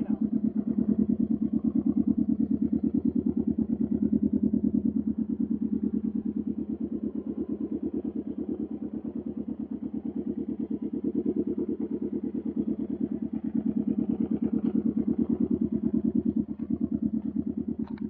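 Can-Am Ryker 600's two-cylinder Rotax engine idling steadily through an RLS Carbon Series aftermarket exhaust.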